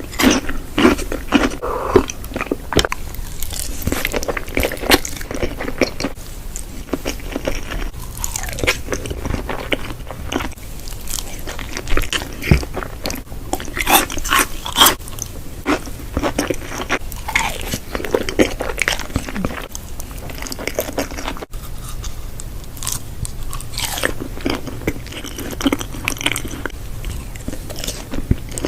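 A person eating close to the microphone: repeated crunchy bites and chewing, with irregular crunches and mouth noises.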